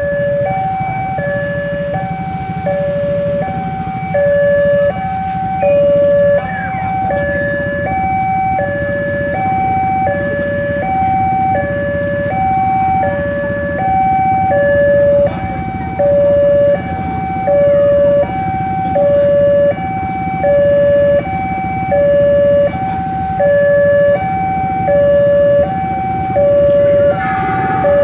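Indonesian railway level-crossing alarm sounding a repeating two-tone electronic warning, high and low tones taking turns in a steady rhythm, which signals that the barrier is down and a train is approaching. A low rumble of waiting traffic runs underneath.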